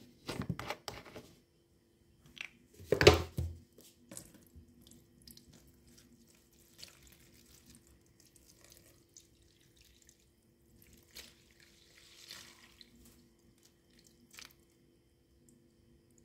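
Soapy liquid poured onto foam sponges in a plastic tub: a few knocks at the start, a loud splash about three seconds in as the pour begins, then soft scattered trickling and crackling as the liquid runs over and soaks into the sponges.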